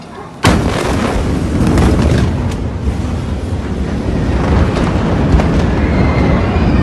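Blast wave of a massive ammonium nitrate explosion arriving: a sudden, very loud boom about half a second in, followed by a continuous loud, deep rumble.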